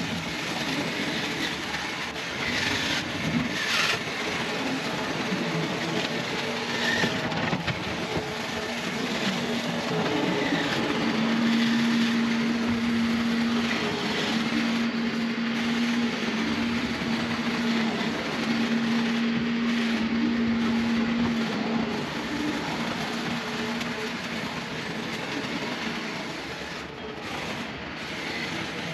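Engine running steadily, with a low hum over its noise that grows stronger through the middle and fades again near the end.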